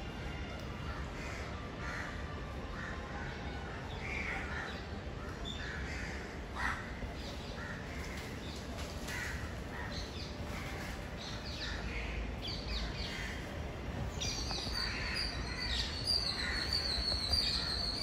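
Birds calling in the trees: scattered short, harsh calls. A steady high-pitched tone joins about three-quarters of the way in.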